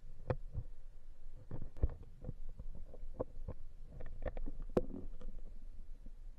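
Underwater ambience picked up by a submerged camera: a low, muffled rumble with irregular soft clicks and knocks, a few of them sharper.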